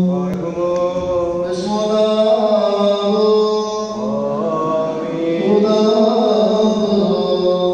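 A man's voice chanting a prayer into a microphone and over a loudspeaker, in long held notes that slide gently from one pitch to the next, with new phrases beginning about a second and a half in and again near six seconds.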